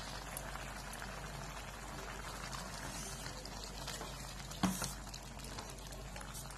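Chayote and chana dal kootu simmering softly in a steel pan while a steel ladle stirs it through, with one sharp knock of the ladle against the pan about four and a half seconds in.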